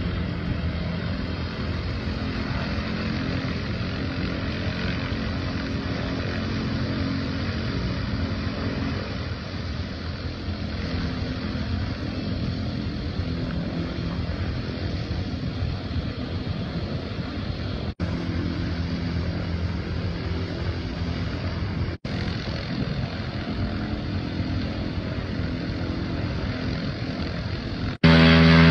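Airship's propeller engines running steadily, a low drone with a hissy haze above it. It drops out briefly three times, and near the end the engine sound is much louder and closer.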